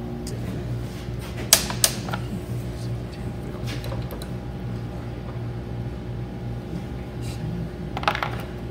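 Hand tools clinking against metal as a small engine is taken apart on a workbench, with two sharp clinks about a second and a half in and a few lighter ones later, over a steady machine hum.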